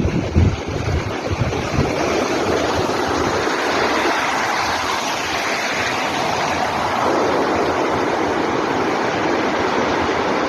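Sea waves washing in as a steady, loud rushing, with wind buffeting the microphone in the first second or so.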